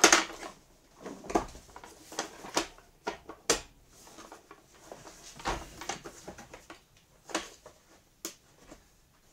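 Plastic clicks and knocks of a vacuum cleaner's upper housing being fitted and pressed onto its body, about nine separate knocks at uneven intervals, the loudest at the very start.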